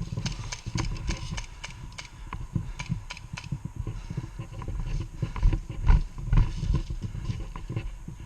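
Footsteps of a player on the move, irregular thuds with clicks and rattles of kit, loudest about two-thirds of the way in.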